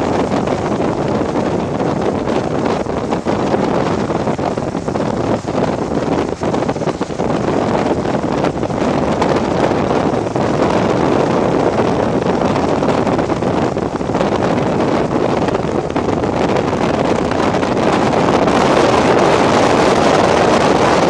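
Strong wind rushing and buffeting across the microphone, a steady roar that grows louder near the end.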